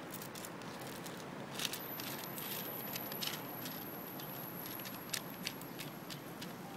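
Light, irregular clicks and taps of chopsticks against a foam food tray and can as food is portioned out for a cat eating from the tray, over a steady outdoor hiss. A faint, high steady whine comes in about two seconds in.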